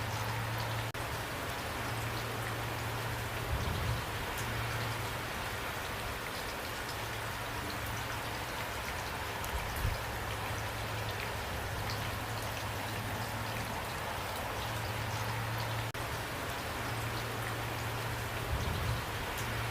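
Steady rainfall with a constant hiss and individual drops ticking on a surface. A few brief low thuds sound about three and a half, ten and nineteen seconds in.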